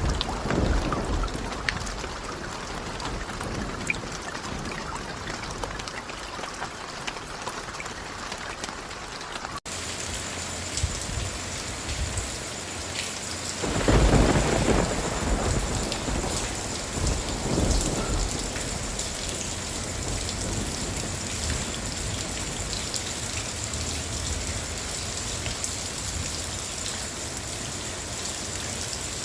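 Steady rain with thunder: a loud rolling rumble about halfway through and a smaller one a few seconds later. About a third of the way in, the rain's texture changes abruptly, as where two recordings are joined.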